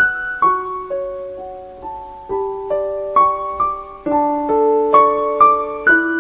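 Background music: a slow, gentle piano melody, single notes and soft chords ringing out and fading one after another.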